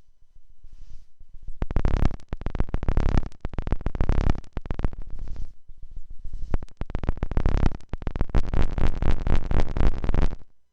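Sound of Shadows PT2399 digital delay module putting out a dense, rapid stream of glitchy electronic pulses in several loud bursts. The sound cuts off abruptly near the end.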